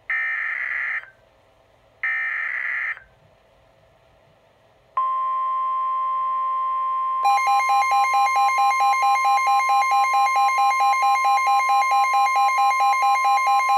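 NOAA Weather Radio emergency alert: two bursts of the screechy SAME digital header, each about a second long and a second apart. About five seconds in, the steady 1050 Hz warning alarm tone starts, and about two seconds later a Midland WR-120 weather radio's alarm beeps about four times a second over it, announcing a tornado warning.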